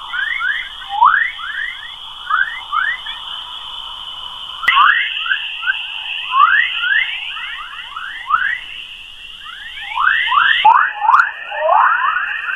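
Space sound presented as Earth's sound: a recording of electromagnetic waves from Earth's magnetic field converted into audio. A steady high electronic tone with many quick chirping sweeps over it, the tone shifting slightly in pitch twice.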